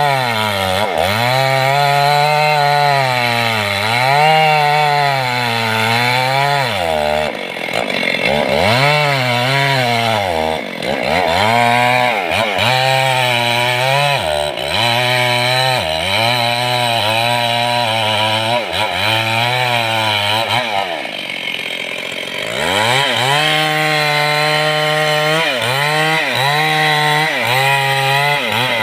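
Stihl two-stroke chainsaw cutting through mahogany wood. The engine pitch drops again and again as the chain bites under load, then climbs back. About three quarters of the way through it eases off briefly, then picks up and cuts on.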